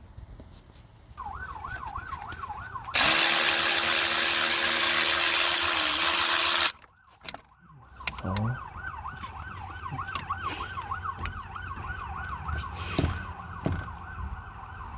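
An emergency-vehicle siren is heard in the background, its pitch sweeping up and down about three times a second. A loud, steady mechanical whir drowns it out for about four seconds in the first half.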